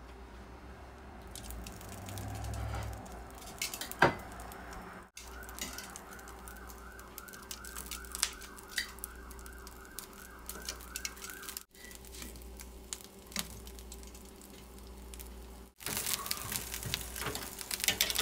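Clicks and a sharp knock about four seconds in as raw pork pieces are set on a metal wire oven rack, over a steady low hum. Through the middle stretch an alarm-like tone warbles up and down about three times a second, then stops at a cut; busier clatter near the end.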